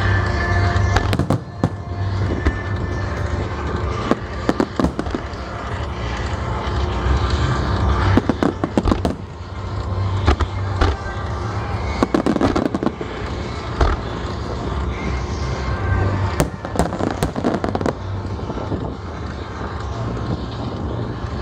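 Fireworks display of aerial shells bursting together with ground-fired jirai (landmine-style) fireworks. The crackle and rumble run on continuously, with many sharp bangs scattered through.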